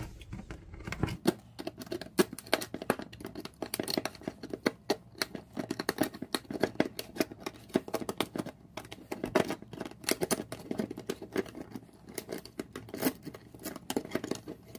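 Multitool needle-nose pliers biting and tearing around the edge of a metal can lid, a fast, irregular series of sharp metallic snips and crunches as the lid is torn open bit by bit.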